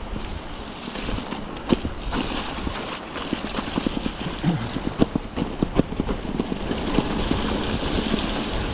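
Bicycle rolling over a wet, rocky trail, rattling and knocking over stones, with wind rumbling on the microphone. The rush of a swollen river grows louder near the end.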